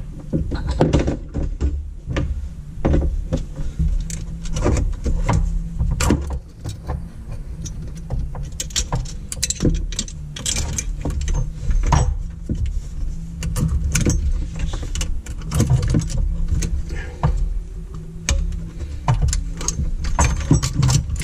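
Hand tools and metal fittings clicking and rattling irregularly as the throttle and oil-injection cables are unhooked from their brackets on a Sea-Doo RX DI 951 engine, with a steady low hum underneath.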